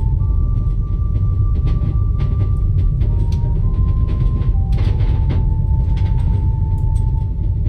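Steady low rumble of a moving train carriage, with scattered short clicks and rattles, under a slow melody of long held high notes that shift in pitch every second or two.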